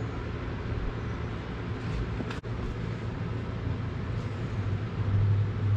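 Steady low hum with a faint whooshing haze: an electric floor fan running in the garage.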